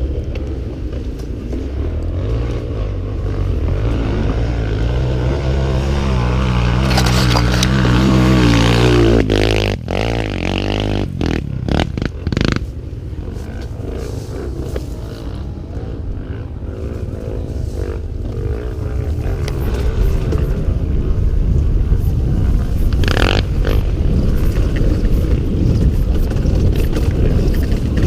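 Honda Tornado single-cylinder four-stroke trail-bike engine, bored out to 319cc, pulling under load off-road. Its revs climb for several seconds, drop sharply about ten seconds in amid a few knocks and clatters, then build again.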